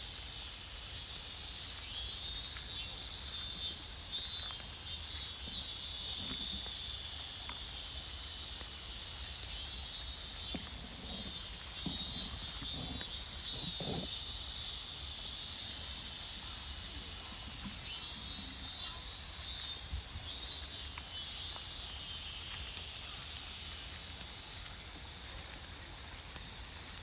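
A chorus of insects chirping and trilling with a rapid pulse, some in higher-pitched stretches that start and stop. A low rumble runs underneath.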